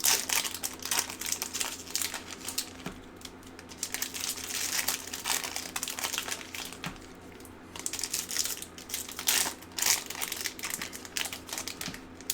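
Plastic trading-card pack wrappers crinkling as hockey card packs are torn open and handled, in several bouts with short pauses between them.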